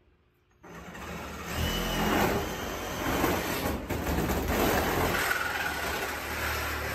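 Reciprocating saw cutting through the plastic wall of an IBC tote, starting abruptly about half a second in and running continuously.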